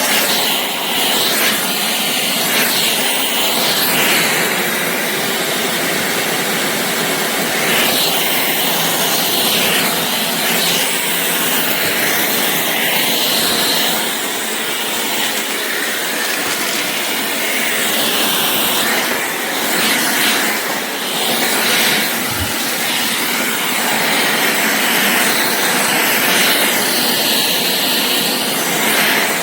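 Shark Clean & Empty cordless stick vacuum running, a loud steady rush of air that shifts a little in tone as it goes.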